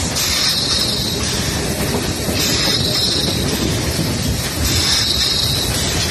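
Metre-gauge steam train running, heard from just behind the locomotive: a steady rumble and clatter of wheels on the rails, with a hiss that swells and fades about every two seconds.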